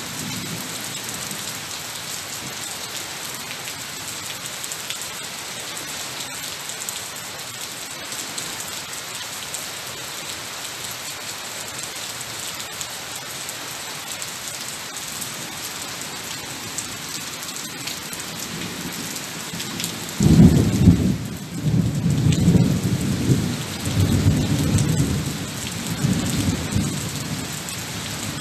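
Rain falling steadily on a tiled terrace and foliage. About twenty seconds in, a loud low rumble of thunder starts suddenly and rolls on in several swells for some seconds before fading.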